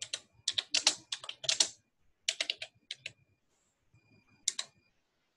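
Typing a command on a computer keyboard: quick runs of keystrokes, a pause about three seconds in, then a few more keystrokes.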